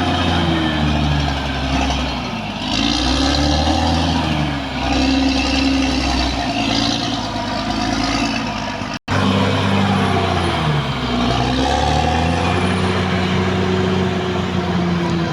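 Caterpillar D6R XL bulldozer's diesel engine working under heavy, changing load, its pitch repeatedly sagging and recovering as the machine pushes. The sound drops out for an instant about nine seconds in.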